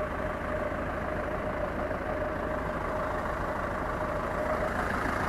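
Farm tractor's diesel engine running steadily at idle, with a faint steady whine above it that fades near the end.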